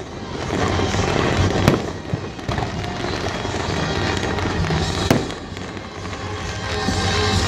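Aerial fireworks going off in a continuous barrage, with two sharper bangs standing out, about two seconds in and again about five seconds in.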